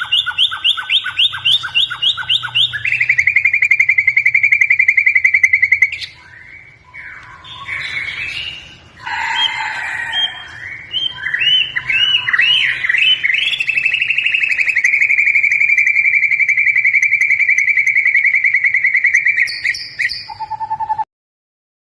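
White-rumped shama singing vigorously: fast runs of repeated notes, long rapid trills, and a stretch of varied whistled phrases in the middle. The song cuts off about a second before the end.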